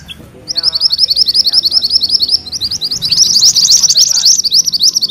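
Mantenan kuning songbird singing its rolling song: a fast run of high, repeated notes, about ten a second. There is a brief break about two and a half seconds in, then the song picks up again.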